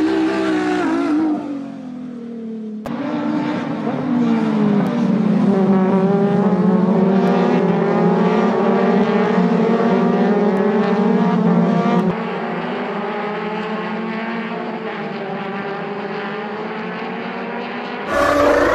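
Open-wheel racing cars' engines running hard, their pitch sweeping down and up as the cars slow and speed up. The sound cuts abruptly about 3 s and again about 12 s in.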